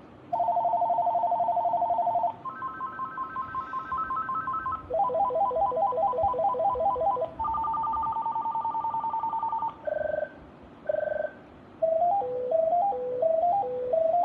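VTech CS6929-2 cordless phone playing its electronic ringtones one after another. It goes through a fast two-tone trill, a higher three-tone warble, a pulsed three-note pattern, another two-tone trill and two short beeps, then a stepping tune about twelve seconds in.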